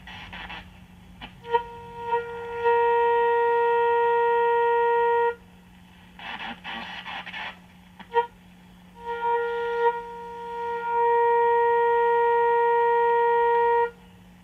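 1939 Fada Model 169 tube radio's speaker giving a steady tone twice, a few seconds each, with shortwave static and short squeals between as the tuning dial is turned near 15 megahertz during alignment. A low hum runs underneath.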